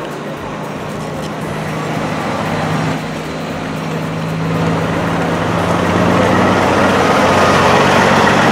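Steady engine noise of a large motor vehicle running close by, with a low hum that grows gradually louder.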